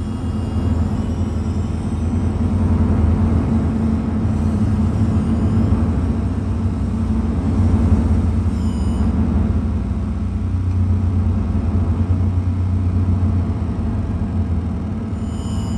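Live electronic noise music: a dense, steady low rumble with droning bass tones and a noisy hiss above it.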